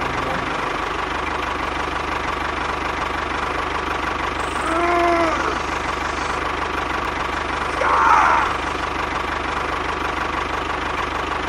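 Small motor of a DIY mini tractor model running steadily with a constant whine. A short rising-and-falling pitched call comes about five seconds in, and a brief louder burst about eight seconds in.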